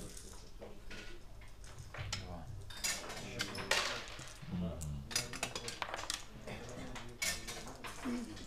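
Backgammon checkers clacking against the board as moves are made: a string of separate sharp clicks, with voices murmuring in the background.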